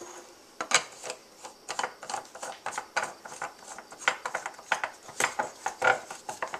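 Whipped cream dispenser head being fitted and screwed onto its canister by hand: a busy, irregular run of clicks, knocks and scraping from the threads and plastic parts, starting about a second in.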